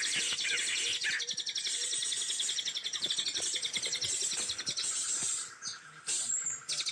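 Birds chirping in forest, short rising and falling chirps in the first second over a continuous rapid high trill, which briefly stops a little past halfway.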